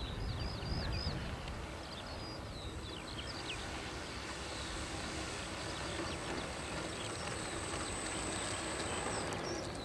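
Small electric motor and propeller of a model airplane running at low throttle as it taxis, a steady high whine over a low hum, the whine growing stronger and then stopping shortly before the end.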